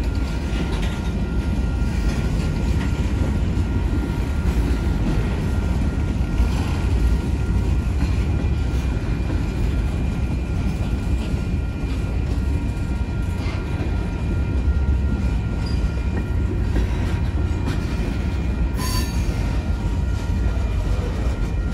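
Freight cars rolling past close by: a steady low rumble of steel wheels on rail, with a single sharp clank near the end.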